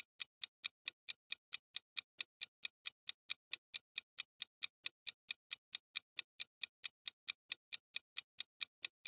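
Clock-tick sound effect counting down a ten-second quiz timer: short, even ticks at a steady level, about four or five a second.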